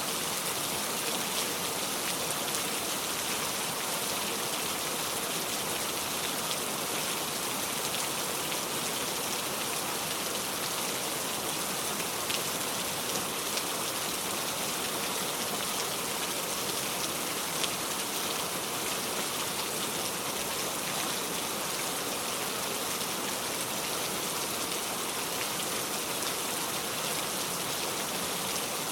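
Heavy rain falling steadily, a dense even hiss of drops hitting surfaces, with fine individual drop taps through it.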